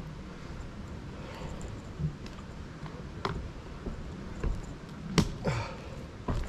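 A few scattered sharp clicks and taps from a bicycle starting up a steep climb, over a low rumble of wind on the microphone; the two strongest clicks come about five seconds in.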